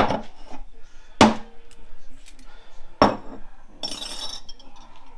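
Metal parts of a 4L65E automatic transmission clinking and knocking as they are handled and set down on the bench: three sharp clinks, then a brief scraping rattle about four seconds in.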